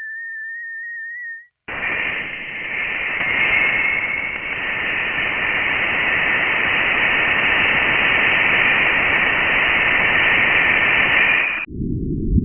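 Sonified astronomical data: a steady whistling tone for about a second and a half, then after a brief break a loud static-like hiss for about ten seconds, switching near the end to a lower, duller noise.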